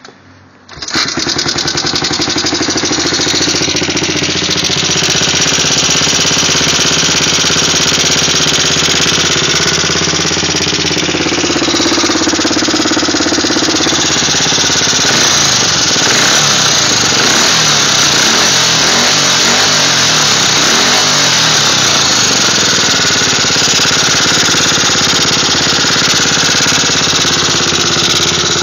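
1985 Yamaha 225DX engine running with a fast, steady clicking, heard after an engine rebuild. It comes in suddenly about a second in and keeps an even rhythm.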